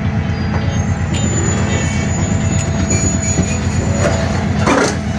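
Diesel train running with a steady low engine rumble. A thin high squeal comes in about a second in, and there is a short louder burst of noise near the end.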